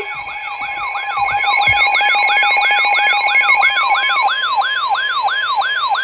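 Emergency alert tones: a falling, siren-like sweep repeating about three times a second over a steady tone, with other steady tones that drop out about four seconds in.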